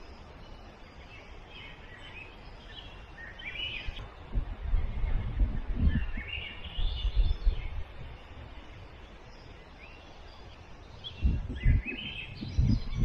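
A songbird singing short chirping phrases every few seconds, with bursts of low rumble twice in between.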